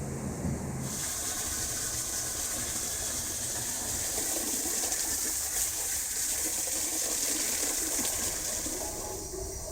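Water gushing through a drain pipe as a dense, hissing rush that starts suddenly about a second in and stops near the end, over a low rumble.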